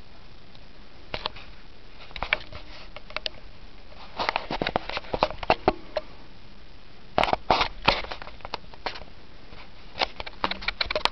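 Handling noise from a homemade plastic Bowcaster prop crossbow turned over in the hands close to the microphone: irregular clusters of short clicks, taps and rubbing, busiest about four to six seconds in and again near eight seconds.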